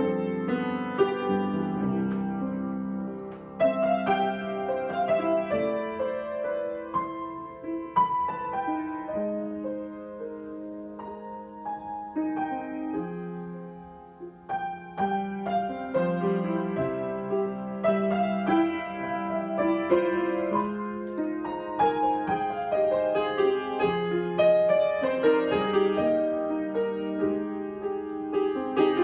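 Solo piano improvisation: sustained chords under a moving melody, growing quiet about halfway through and then building louder again.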